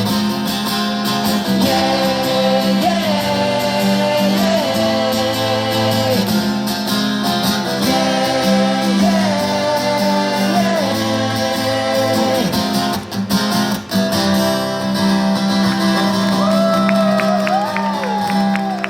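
Live pop-rock outro played on two guitars, with the lead singer holding wordless vocal lines over sustained chords. The music winds down right at the end.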